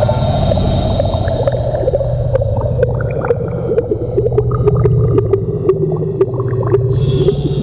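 Synthesized sci-fi alien-planet ambience. A low pulsing drone runs under a wavering mid-pitched tone full of bubbling, gurgling blips and scattered sharp clicks. A high hiss fades out over the first couple of seconds and cuts back in suddenly about seven seconds in.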